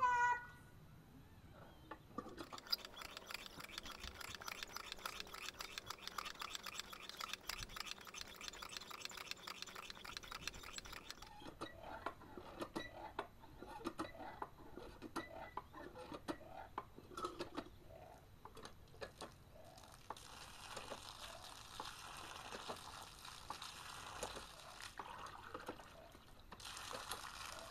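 Cast-iron pitcher pump being primed with a new leather cup seal: the handle is worked in quick strokes with rapid clicking and rattling from the pump. Water then starts to come up and splashes from the spout into a glass near the end.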